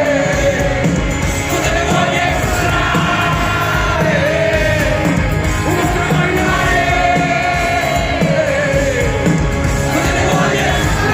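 Live rock band playing, with a lead vocalist singing long held notes over it.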